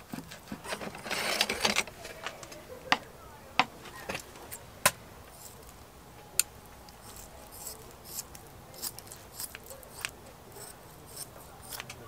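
Kitchen scissors snipping and metal tongs clicking while fat is trimmed off raw pork neck steaks. There is a rough cutting sound about a second in, then several sharp metallic clicks, fainter toward the end.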